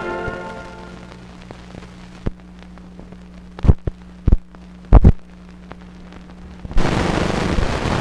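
The last notes of closing music fade out. Then the optical soundtrack of a 16mm film running out on blank leader: a steady hum with several loud pops, and a burst of hiss from about seven seconds in.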